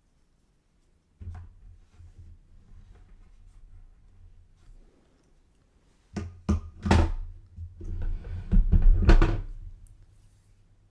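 Thumps and rustling close to the microphone: a low rumble of movement from about a second in, then several loud bumps and thumps between about six and nine and a half seconds in.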